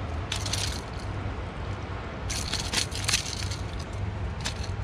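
A few short crunching scrapes on rock and gravel: a brief one about half a second in, a longer cluster in the middle and a short one near the end, over a steady low rumble.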